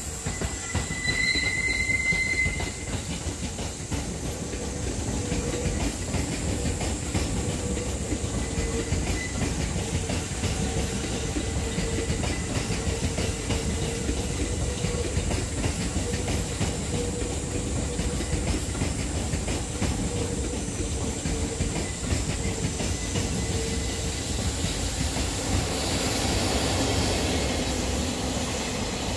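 Electric commuter trains running past, wheels clicking over the rail joints, with a high wheel squeal in the first couple of seconds and a steady hum through the middle. Near the end a freight train of tank wagons rolls by, and the rumble grows louder.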